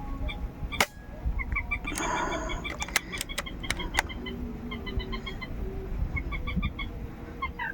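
Bird calls: series of short, quickly repeated pitched notes, broken by several sharp clicks about a second in and again between two and four seconds in, over a low rumble.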